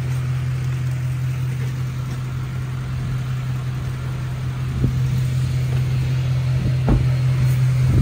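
Duramax diesel pickup engine idling with a steady low drone, with a couple of light knocks in the second half.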